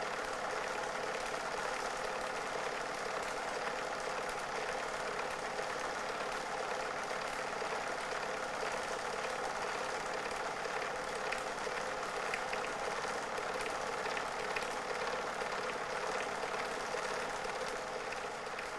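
Steady mechanical whirr of a Super 8 film projector running, with a fine rapid clatter from the film transport and a constant hum.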